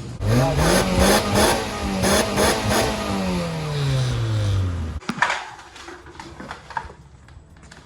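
A car engine is revved hard: the note climbs fast, stays up with a stuttering pulse about three times a second for a few seconds, then falls back toward idle before cutting off abruptly about five seconds in.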